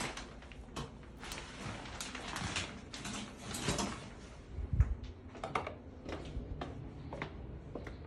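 A fabric shower curtain rustling as it is handled and pushed aside, its rings scraping on the metal rod, with many short scrapes and clicks and one low thump about five seconds in.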